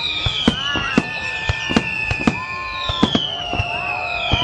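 Fireworks display: a quick series of sharp bangs and pops, about two or three a second, over repeated falling whistling tones.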